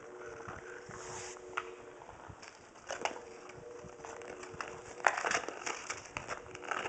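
Ice-skate blades scraping and carving on frozen lake ice, with irregular sharp clacks of hockey sticks on the ice; the loudest knock comes about five seconds in.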